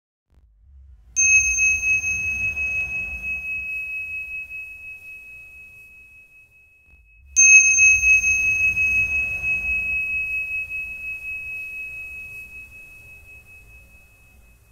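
A high bell-like chime struck twice, about six seconds apart, each strike ringing on and slowly fading, with a low rumble swelling under each one.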